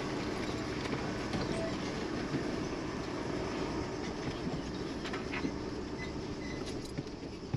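Steady low rumble of a car's engine and running gear, heard from inside the car, with a few faint clicks and rattles.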